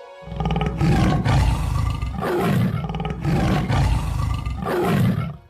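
Tiger roaring: a deep roar in several long surges, starting about a quarter second in.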